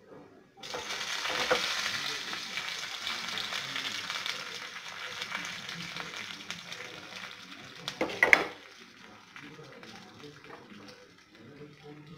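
Curry leaves dropped into hot oil with mustard seeds and dals, a tempering, sizzling and crackling loudly as soon as they go in and easing off over several seconds. A couple of sharp clatters from the pan come about eight seconds in.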